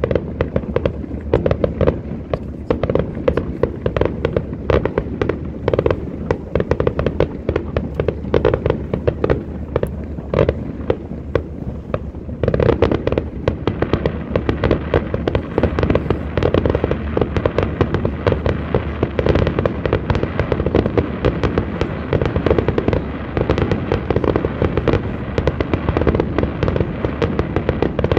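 Aerial fireworks display: a dense, continuous barrage of bangs and crackles, growing thicker about twelve seconds in.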